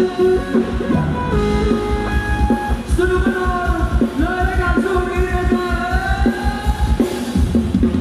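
Live band playing a Thai ramwong dance song: a singer's held, gliding melody over drums and guitar with a steady beat.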